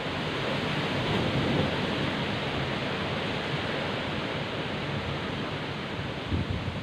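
Heavy rain pouring down, a steady dense hiss, with gusts of wind. There are brief low thumps of wind buffeting the microphone near the end.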